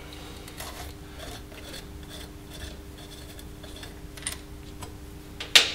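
Thermostat cover being worked off an outboard powerhead by hand: faint, irregular scraping and rubbing of metal parts with small clicks, and one sharper click about five and a half seconds in.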